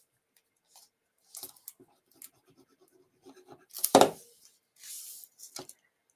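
Paper pieces handled and rubbed on a tabletop in small rustles and ticks, with one sharp knock about four seconds in as a plastic glue bottle is set down on the desk, then a brief sliding rustle.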